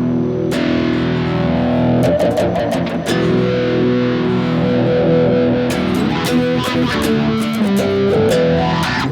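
Electric guitar played through a Tech 21 SansAmp California pedal, a Mesa Boogie-style amp emulator, giving an overdriven tone. Held chords ring at first, then quicker picked single notes from about halfway through.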